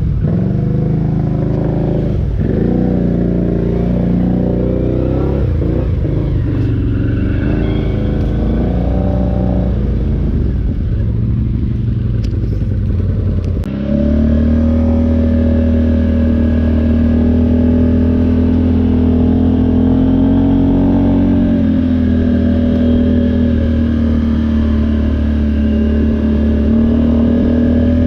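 ATV engine running, its revs rising and falling over and over. About fourteen seconds in, the sound changes abruptly to a louder, steadier engine note at higher revs.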